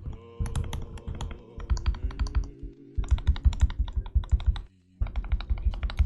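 Fast typing on a Royal Kludge RK61 mechanical keyboard with lubed, tape-modded Durock linear switches: rapid runs of keystrokes, with brief pauses about two and a half seconds in and again about five seconds in.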